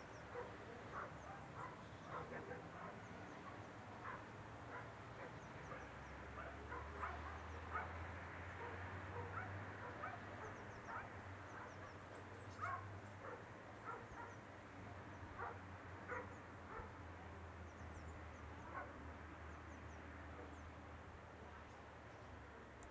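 Faint, scattered, short distant animal calls over a low steady hum that sets in about six seconds in.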